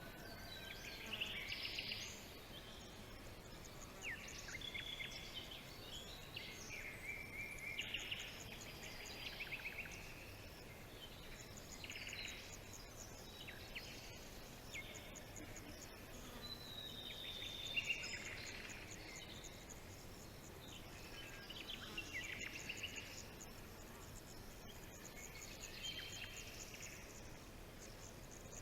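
Several birds singing and calling at once, overlapping chirps, rapid trills and short whistles, over a faint steady background hiss.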